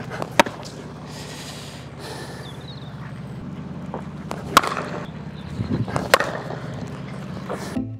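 Cricket bats striking balls in practice nets: three sharp cracks, about half a second in, about four and a half seconds in and about six seconds in, over a steady low hum.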